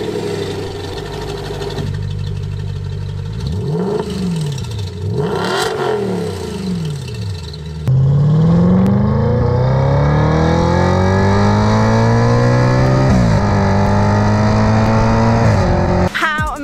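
Audi RS5's V8 through a newly fitted aftermarket exhaust, idling with a few quick revs. Then, louder, the engine accelerates hard with its pitch climbing, drops once at a gear change and climbs again before cutting off near the end.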